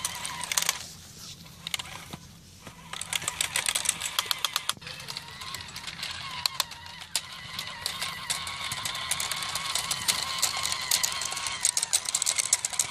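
Homemade LEGO RC truck with tracks driving over dirt: an electric motor whine under rapid, irregular plastic clicking from its gears and tracks, quieter for a moment about a second in.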